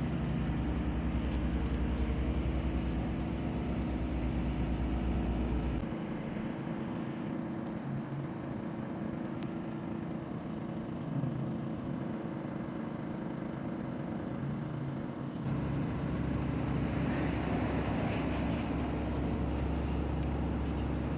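Steady low mechanical hum of a running engine at a constant pitch, changing abruptly about six seconds in and again about fifteen seconds in.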